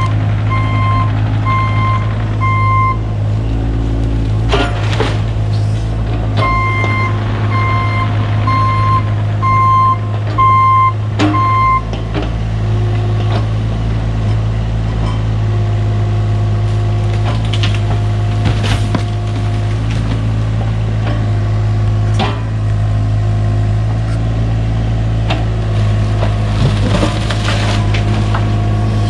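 Cat 303 mini excavator's diesel engine running steadily, its travel alarm beeping about twice a second in two runs during the first half. Scattered sharp cracks and knocks from the shed's wooden structure being broken.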